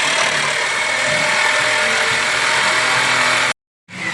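Power tool cutting through metal exhaust pipe, a steady loud hiss with a constant high whine. It stops abruptly about three and a half seconds in and starts again just before the end.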